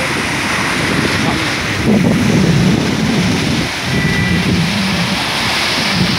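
Loud, steady roar of muddy floodwater surging and crashing over a concrete edge, with wind buffeting the microphone.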